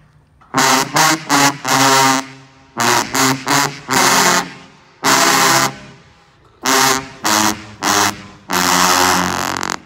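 Marching band tuba section of sousaphones and contras playing a loud, punchy unison riff. Each phrase is a few short blasts ending in a long held note, with brief breaks between phrases.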